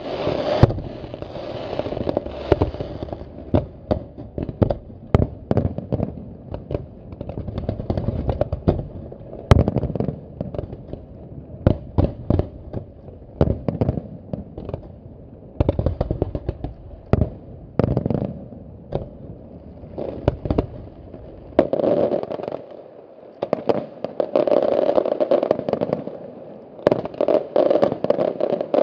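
Fireworks display: an irregular rapid series of sharp bangs from bursting shells, with stretches of dense crackling between them.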